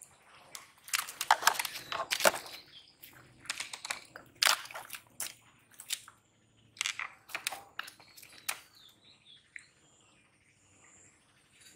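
A freshly caught fish thrashing on grass and in a plastic basin of water: irregular bursts of wet slapping and rustling, in three clusters with short pauses between.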